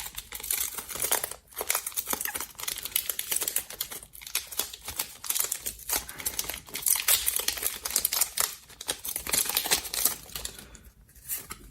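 Crinkly foil booster-pack wrapper being torn open and handled, a dense run of irregular crackles.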